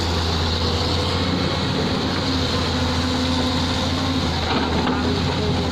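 An old dump truck's diesel engine running steadily under way, with a deep, even hum.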